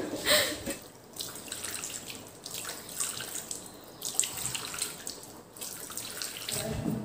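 Tap water running into a wash basin while hands splash water onto a face to rinse off soap, in repeated splashes.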